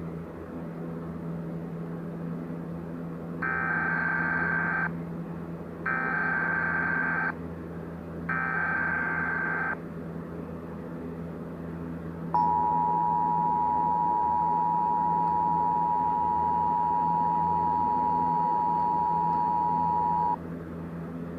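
Emergency Alert System header: three short buzzy data bursts of the SAME digital header, each just over a second long, then the EAS two-tone attention signal (853 and 960 Hz sounded together), a steady dual-pitched tone held for about eight seconds before it cuts off. A low steady hum runs underneath.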